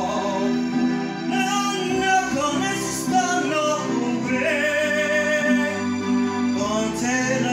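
A man singing karaoke into a microphone over a backing track, both coming through a floor PA speaker; about halfway through he holds one long note.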